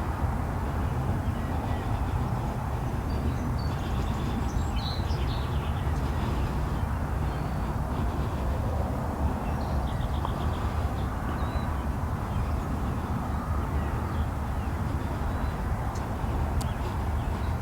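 Steady low outdoor rumble, with a few faint, brief bird chirps and trills above it at intervals.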